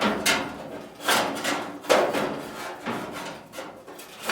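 Irregular metallic clanks and rattles from thin sheet steel being handled and worked during fender patch fabrication, about a dozen knocks with a short ring after each.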